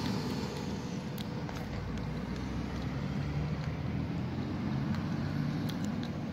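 Steady low rumble of distant road traffic, with a few faint clicks about a second in and again near the end.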